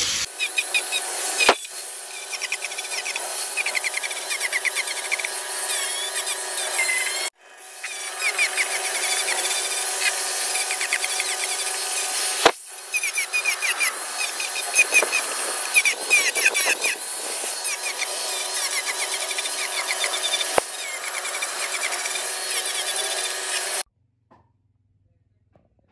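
Angle grinder fitted with a sanding disc, sanding a carved wooden panel. A steady motor whine runs under wavering high tones as the disc rubs across the wood. The sound breaks off abruptly twice and stops near the end.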